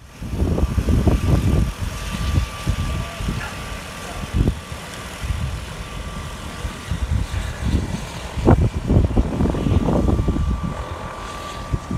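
Floatplane engine running as the plane taxis on the water, a faint steady hum beneath irregular low rumbling gusts of wind on the microphone.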